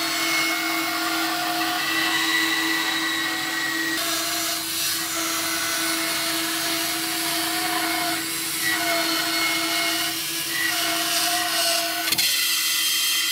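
Grizzly floor-standing bandsaw running and ripping a thick softwood timber lengthwise, a steady hum with a higher cutting pitch that wavers as the board is fed through the blade. There is a sharp knock near the end.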